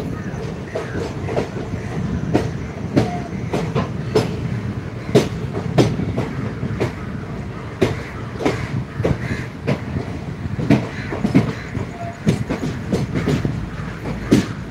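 Passenger train coach running, heard from its open doorway: a steady low rumble with frequent, irregularly spaced clacks of the wheels over the rail joints.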